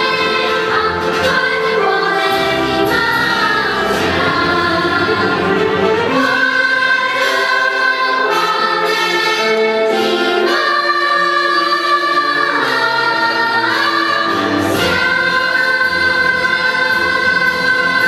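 Children's choir singing with musical accompaniment, in long sustained phrases, ending on a long held chord over the last few seconds.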